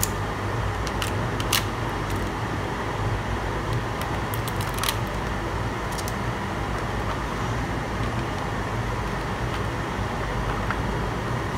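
Plastic packaging being handled: a few light clicks and crinkles in the first five seconds, over a steady low hum.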